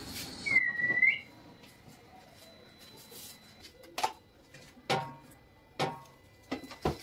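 A single whistled note, dipping and then rising, about a second in. It is followed by a few short, sharp knocks spaced about a second apart as things are handled in a cramped corner.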